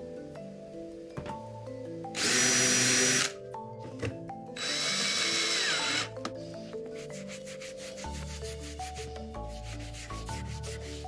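A drill driving screws into timber in two bursts of about a second each, with a steady whine. Later comes a quick, rhythmic rubbing, wax being worked into the wood. A light melodic music bed with mallet-percussion notes plays throughout.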